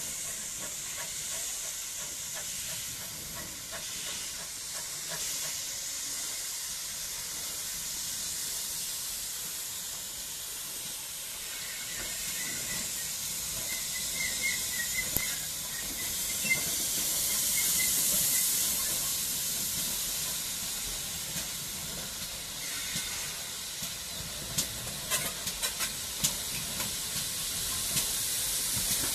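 A Great Western Railway pannier tank steam locomotive, No. 4612, drifts slowly in with a steady hiss of steam that swells about midway. In the last few seconds there is a run of sharp clicks, likely its wheels passing over rail joints.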